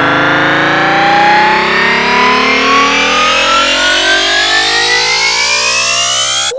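Sequenced quack and honk sound samples repeated ever faster and pitched ever higher, blurring into a dense, steadily rising whine of several tones, which cuts off suddenly at the end.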